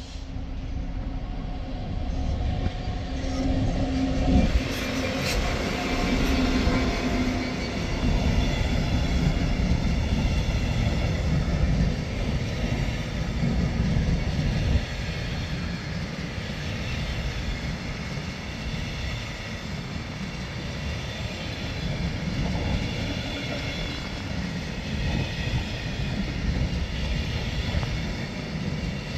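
Class 66 diesel locomotive running past with its engine note in the first few seconds, followed by a long train of empty flat wagons rumbling steadily over the rails, with a faint high squeal from the wheels.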